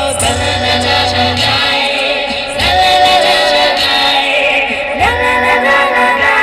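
Live busking music: singing in held, gliding notes over an accompaniment with low bass notes that come and go.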